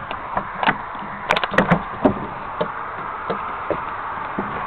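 Irregular knocks and thumps of a person climbing up onto a wooden platform, with a quick cluster of sharp clicks about a second and a half in.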